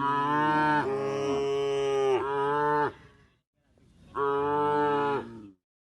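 Cow mooing: one long moo of about three seconds that breaks in pitch twice, then a shorter moo about four seconds in.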